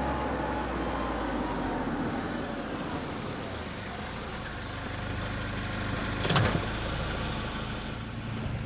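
Car engine and road noise, a steady low hum as the car drives along, with a brief sharp knock about six seconds in.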